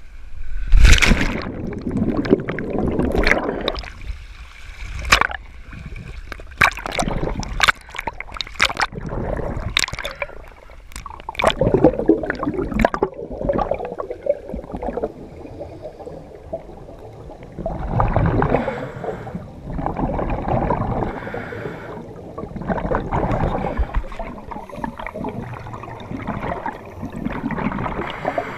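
A scuba diver splashes into the sea about a second in, followed by muffled underwater sound with sharp clicks and knocks. Then the diver's exhaled regulator bubbles gurgle up in surges every two to three seconds.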